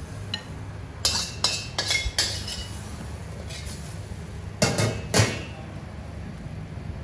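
Metal spoon clinking and scraping against a stainless steel wok while scooping out stir-fried noodles: a quick run of clinks about a second in, then a few louder knocks around five seconds.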